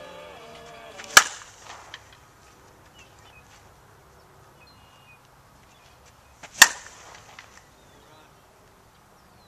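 A softball bat hitting two slowpitch pitches, two sharp cracks about five seconds apart. The bat is cracked and has lost its power.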